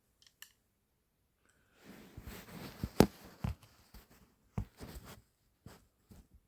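Rustling handling noise with a series of sharp clicks and knocks, the loudest about three seconds in.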